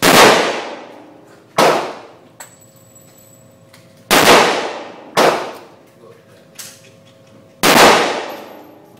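Pistol shots fired one at a time, five in all at uneven spacing, each a sharp crack with a long ringing echo tail. A few faint clicks fall between the shots.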